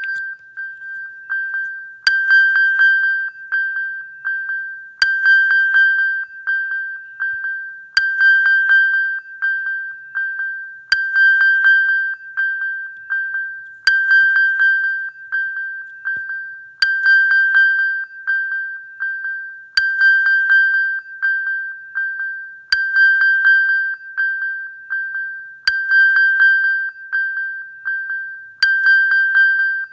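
iPhone Find My iPhone alert sound (iOS 15 and earlier): a high, bright pinging tone in quick repeated pings, each run starting loud and fading, the pattern repeating about every three seconds.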